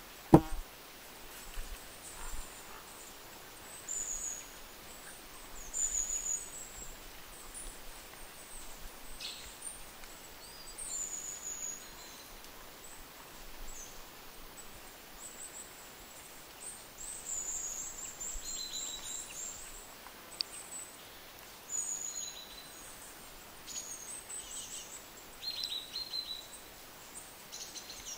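A sharp click just after the start, then faint high-pitched chirps and short trills every second or two over a soft background hiss.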